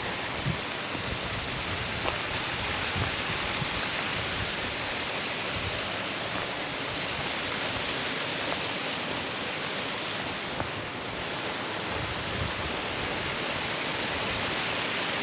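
Waterfall rushing steadily: a continuous, even hiss of falling water.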